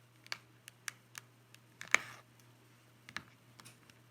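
Sharp plastic clicks and ticks from a Logitech K750 solar keyboard's thin case being pried at with a guitar pick, with one louder snap about two seconds in.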